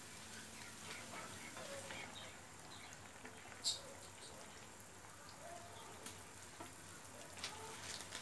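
Faint bubbling and small pops of prawn curry sauce simmering in a pan, with a few sharp clicks, the loudest about a third of the way in.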